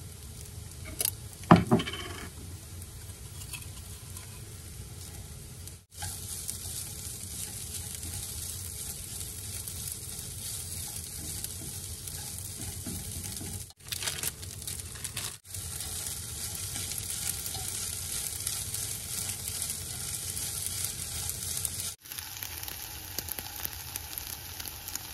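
Egg fried rice sizzling in a frying pan as it is stirred and scraped with a utensil, a steady frying hiss. A sharp knock about a second and a half in, and the sizzle cuts out for an instant four times.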